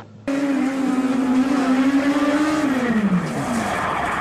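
Rally car engine held at high revs, then the revs fall away about three seconds in.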